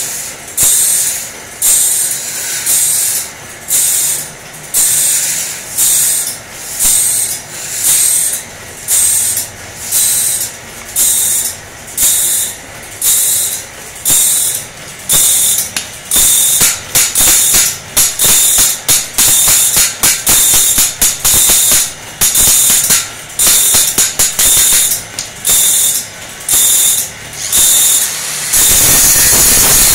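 Band saw blade sharpening machine grinding the blade tooth by tooth, a rasping stroke roughly once a second. From about halfway quicker, irregular taps of a hammer on the steel blade join in, and near the end an angle grinder starts and runs steadily.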